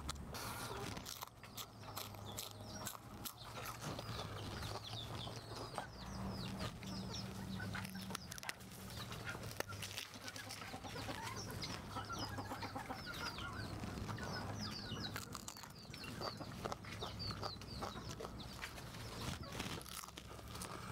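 Birds calling with many short chirps, with chicken clucks among them. Frequent light clicks come from food and utensils being handled, over a low steady hum.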